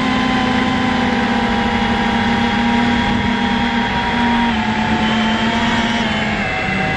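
FPV quadcopter's electric motors and propellers whining steadily. The pitch drops in two steps in the second half as the throttle comes back.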